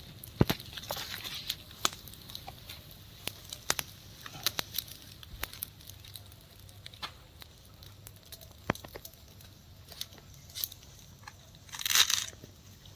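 Open wood fire of dry twigs and sticks crackling, with irregular sharp pops and snaps.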